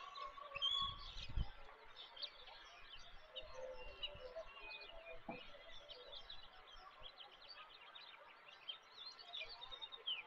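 Many small birds chirping and calling in short, quick notes over a faint hiss, with a couple of low thuds about a second in and another midway.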